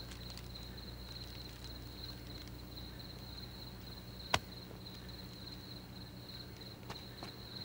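Crickets chirping in a steady high trill, with one sharp click about four seconds in.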